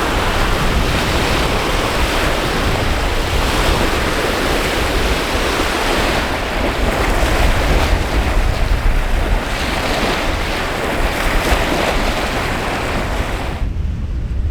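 Wind-driven waves crashing on a rocky lakeshore in a storm, with strong wind buffeting the microphone: a loud, steady rush with a deep rumble. The hiss drops away sharply near the end.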